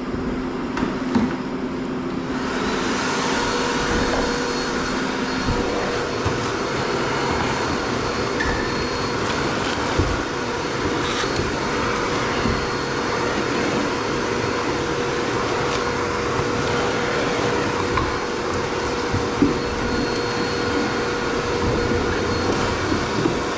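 A motor-driven fan starts about two seconds in and runs steadily, a constant whirring with a steady hum, while cleaning up a floor. A few light knocks sound over it.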